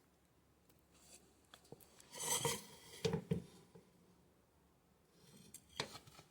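A few short rubbing and scraping handling noises about two and three seconds in, with scattered light clicks, against a quiet small room.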